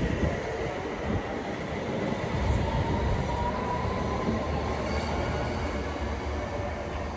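London Underground S8 Stock train pulling out and accelerating away, its traction motors giving a rising whine over the rumble of the wheels on the rails.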